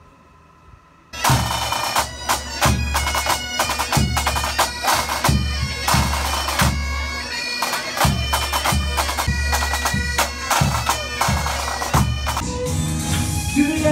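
A pipe band playing: bagpipes with their steady drones and a chanter melody over a regular drum beat, starting suddenly about a second in and breaking off near the end.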